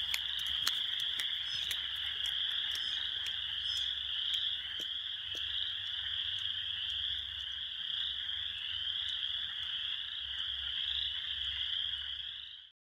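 A dense chorus of frogs calling, a continuous high-pitched trilling that pulses slightly, over a low wind rumble; it cuts off abruptly near the end.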